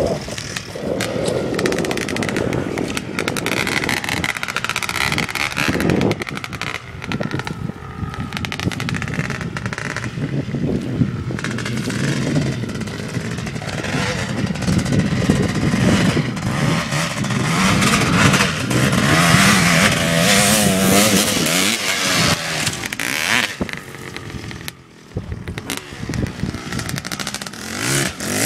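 1986 Kawasaki KX500 dirt bike's two-stroke single-cylinder engine being ridden, revving up and down so its pitch keeps rising and falling, with a brief drop in level near the end.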